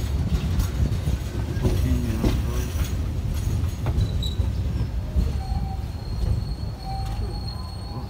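Passenger train heard from on board: a low rumble of wheels on rail with scattered clicks over the track. A high, steady squeal from the running gear sets in about halfway, and the running noise grows quieter near the end.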